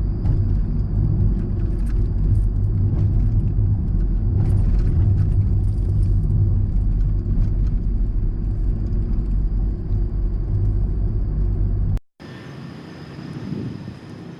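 Steady low rumble of a car being driven, road and engine noise. It cuts off abruptly about twelve seconds in, leaving a much quieter steady hum.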